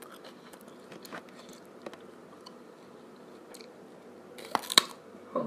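A person chewing and biting into cold crab, close to the microphone: soft wet chewing and small clicks, then a few loud, sharp crunches about four and a half seconds in.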